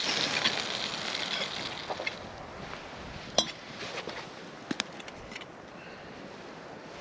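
A rushing noise that dies away over the first two seconds, then a few sharp clinks: the loudest about three and a half seconds in, and a quick pair a little before five seconds.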